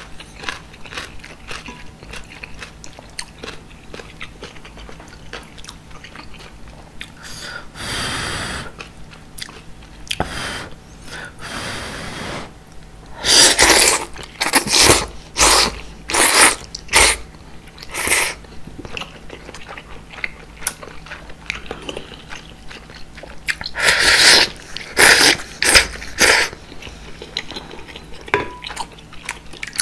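Close-miked eating of udon noodle soup: a steady stream of soft chewing and wet mouth clicks. Broken by two runs of loud slurps as thick udon noodles are sucked up off a wooden ladle, about one slurp a second, the first run a little before halfway and the second near the end.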